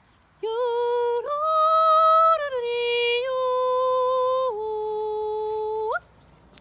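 Kulning, the old Nordic herding call, sung by a woman's voice to call a cow and sheep in. It is a string of five long held notes without words, stepping up and down in pitch. The second note is the highest and loudest, and the last one slides sharply upward and breaks off.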